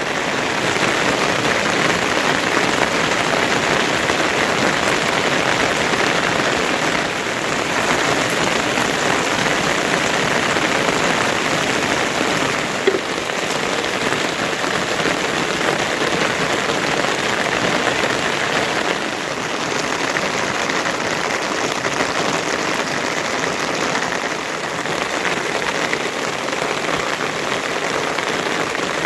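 Heavy rain falling steadily, a dense, even hiss of drops, with one brief tap about halfway through.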